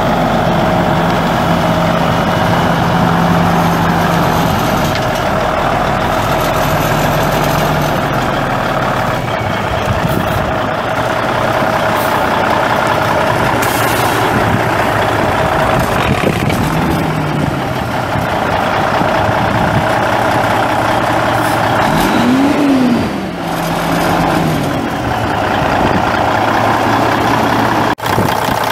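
Cummins N14 14-litre inline-six turbo diesel of a 1993 International 9400 truck running, its pitch stepping up and down several times. One quick rev rises and falls about three-quarters of the way in.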